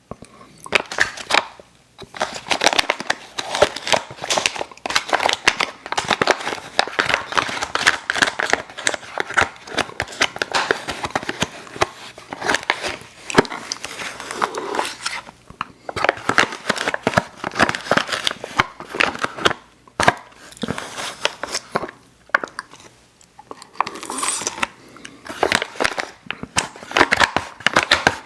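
Close-miked crinkling and tearing of an Airheads Xtremes sour candy wrapper, in bursts of several seconds with short pauses.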